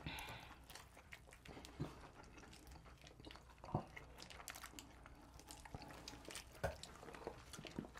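Quiet chewing and mouth sounds of people eating pizza, with scattered small clicks and smacks.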